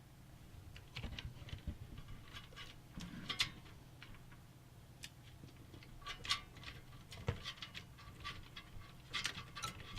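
Scattered small clicks and scratchy scrapes of a screwdriver working a tight screw in a PC case, over a low steady hum.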